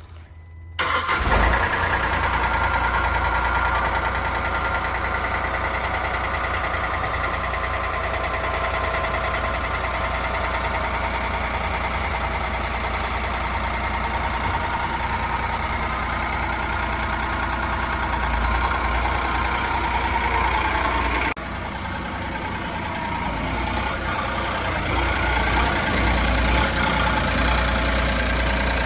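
Vermeer SC48TX stump grinder engine starting about a second in and then running steadily; about two-thirds of the way through its level dips briefly, then rises again.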